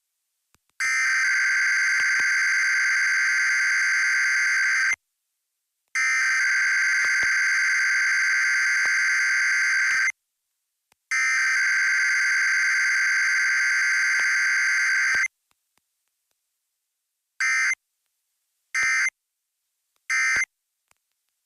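Emergency Alert System SAME data bursts of a Required Weekly Test: the digital header tone sent three times, each about four seconds long with a second's gap between, then three short end-of-message bursts near the end. No attention tone and no voice message follow.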